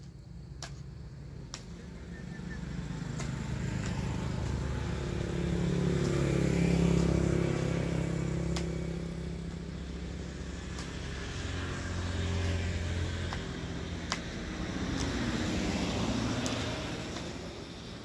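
Road vehicles passing one after another on a nearby road, the engine sound swelling and fading three times, loudest about a third of the way in; the last one's pitch drops as it goes by near the end. A few light sharp ticks in between.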